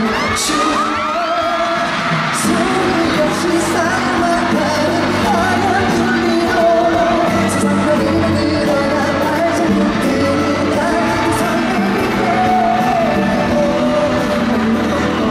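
Live pop song: a male singer's amplified voice over a full backing track, echoing in a large arena hall. Fans in the audience scream over the music at times.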